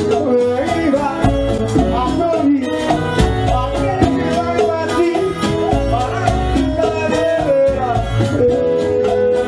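Live Latin dance band music: singing over congas, bass and a steady percussive beat, with a long held note near the end.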